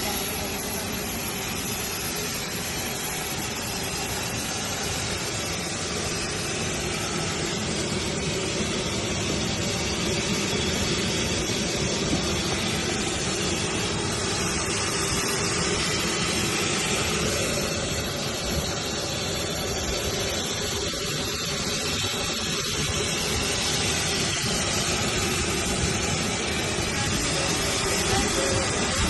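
Steady engine and rushing-air noise of a private jet, heard from inside the cabin.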